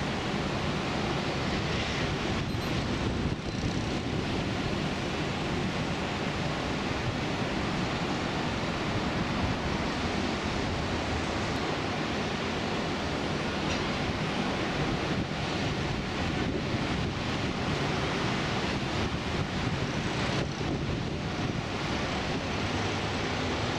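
Steady wind rushing over the microphone, a continuous even roar with no distinct events.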